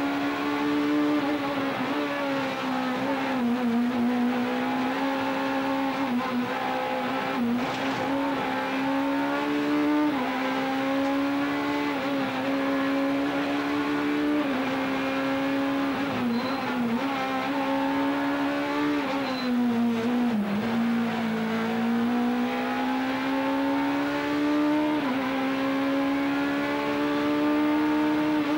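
Four-cylinder rally car engine heard from inside the cockpit at high revs, its pitch climbing slowly through each gear and dropping sharply at the gear changes several times.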